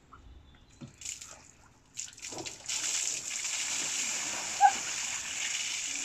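Water splashing as a man drops into a full wooden barrel, then a steady rush as the displaced water spills over the rim and pours down concrete steps, with one brief sharp sound about halfway through.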